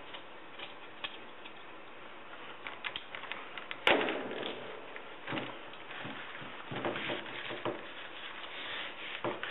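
Scissors snipping chopped strand fiberglass mat, then gloved hands rustling and pressing the resin-wet mat into the mold, with one sharp knock about four seconds in.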